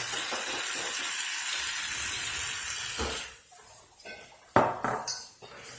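Aerosol can of shaving cream spraying foam in a steady hiss for about three seconds, then stopping. A couple of sharp knocks follow, the loudest about a second and a half later.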